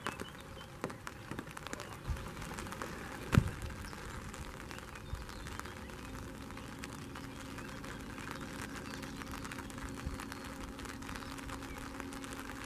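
A golf club strikes a ball with one sharp click about three and a half seconds in, over steady outdoor background noise; a faint steady low hum joins about halfway through.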